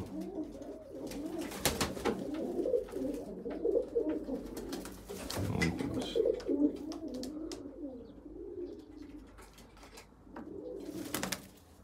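Domestic pigeons cooing, several low wavering coos overlapping without a break, with a few short sharp knocks among them, the loudest near the end.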